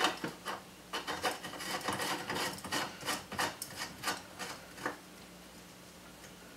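Metal scraping and rubbing in a run of short, uneven strokes as a red-painted muffler is worked onto a pocket bike's exhaust. The strokes stop about five seconds in.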